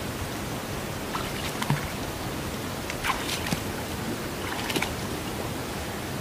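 Water sloshing and splashing around a person's legs as she wades through shallow lake water, a few separate swishes over a steady background hiss.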